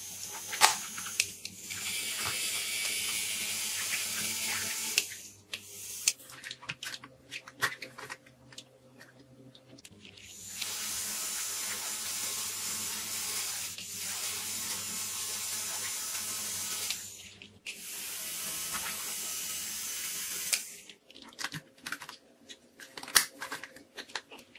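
Battery-operated toy bubble guns running in three spells of a few seconds each: a small electric motor hums under a steady airy hiss from the fan blowing bubbles. Between the runs, sharp plastic clicks and knocks as the guns are handled.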